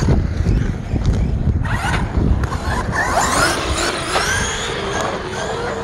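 RC monster truck's brushless electric motor whining, its pitch climbing and dropping as the throttle is blipped, over a steady low rumble.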